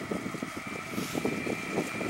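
An approaching class 423 S-Bahn electric multiple unit, heard as a steady high electric whine, with gusty wind buffeting the microphone.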